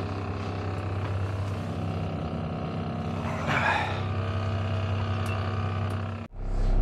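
Semi truck's diesel engine idling steadily, with a short noisy burst about halfway. Near the end the sound cuts out for a moment and returns louder.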